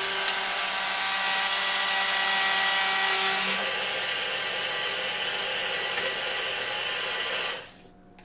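A single-serve personal blender's motor runs steadily, blending banana, apple, oat milk and ice cubes into a smoothie. Its tone changes about halfway through, and it stops suddenly near the end.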